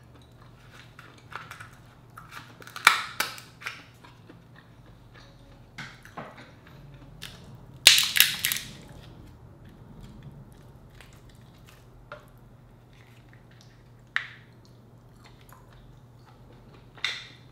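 King crab leg shell being snipped with kitchen scissors and cracked apart by hand: a string of sharp snips and cracks. The loudest is a crackling break about eight seconds in, with single clicks after it.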